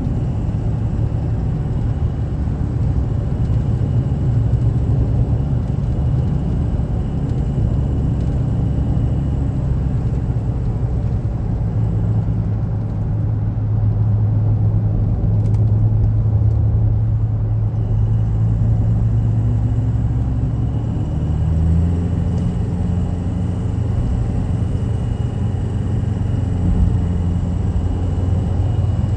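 A car driving steadily, with a continuous low engine and road rumble; the engine note shifts about two-thirds of the way through.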